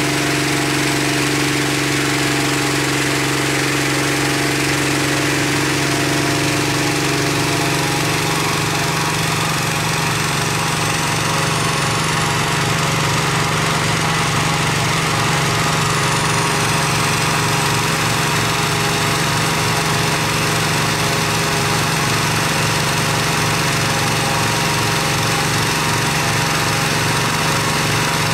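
Gasoline-engine inflator fan running steadily, blowing air into a hot air balloon envelope during cold inflation.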